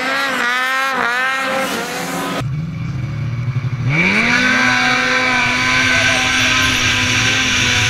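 Ski-Doo snowmobile engine revving up and down. After a cut, a sled idles low, then its engine rises sharply about four seconds in at the launch and holds a steady high pitch at full throttle.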